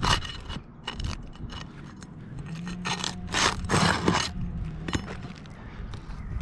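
Roof shingles being pried up, giving several separate scraping, crunching strokes as a row is lifted to reach the nails beneath.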